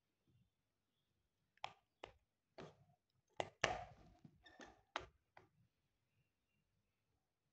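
A series of about eight light clicks and taps over about four seconds, the loudest a little past the middle with a short rustle after it: handling noise from objects being moved close to the microphone.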